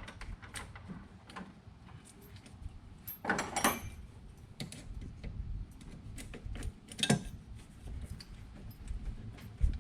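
Scattered metallic clinks and clatter of hand tools and parts during work on a van's brake master cylinder and hydro-boost unit, with a louder run of clatter about three and a half seconds in and a sharp knock about seven seconds in.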